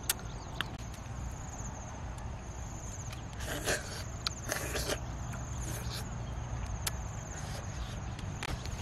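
Insects trilling steadily in a high, finely pulsing drone. A few sharp clicks and two short rustles, around the middle, sound over it.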